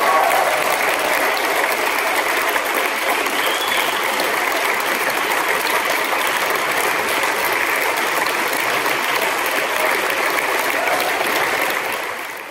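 Audience applauding steadily, dense clapping from a large crowd, fading out at the very end.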